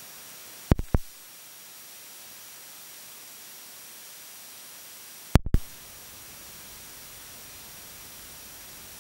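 Steady hiss of recording noise with a faint high whine in it, broken by two short clusters of sharp pops, about a second in and again at about five and a half seconds.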